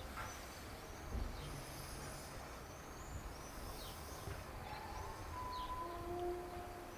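Faint outdoor ambience with a low rumble and small birds chirping in short, quick downward notes. About five seconds in, a faint, drawn-out, unexplained tone sounds for a second or two, dropping lower in pitch partway through. This is the kind of strange sound the listener finds weird and not normal.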